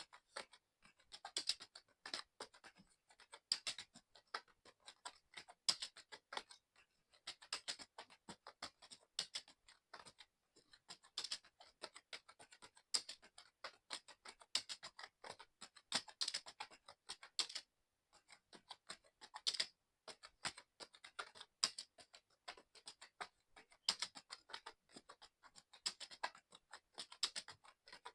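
Fast, continuous typing on a mechanical keyboard: rapid key clicks in uneven runs, with a brief pause a little past halfway.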